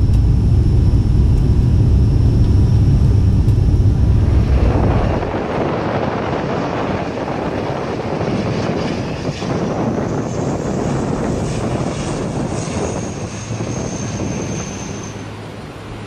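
Twin-engine turboprop airliner on landing: first the heavy, steady drone of engines and propellers heard inside the cabin, then, about five seconds in, propeller and engine noise heard from outside as it touches down, with a high whine, fading toward the end.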